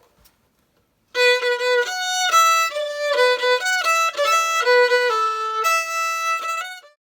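Music: a quick solo melody starting about a second in, its notes changing several times a second, fading out right at the end.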